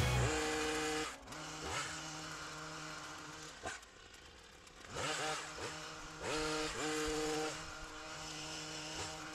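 Stihl petrol hedge trimmer's small engine revved in repeated short bursts as it cuts, each time rising quickly from idle to a steady high pitch and dropping back. It is quietest around four seconds in.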